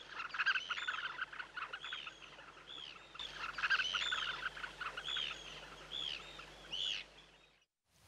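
A chorus of shorebirds calling: many short, rising-and-falling piping notes from several birds, overlapping at a few a second over a lower chatter, cut off abruptly near the end.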